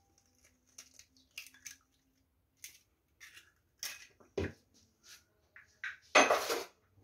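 An egg cracked on the rim of a glass bowl: small clicks and taps of eggshell, a sharp knock about four seconds in, and a louder, longer clatter near the end.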